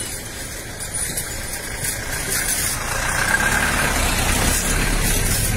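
Motorcycle engines running close by, a steady low rumble that grows louder about three seconds in.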